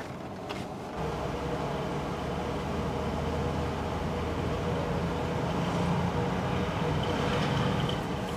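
Vehicle engine running with a steady low hum. It comes in abruptly about a second in and grows slightly louder.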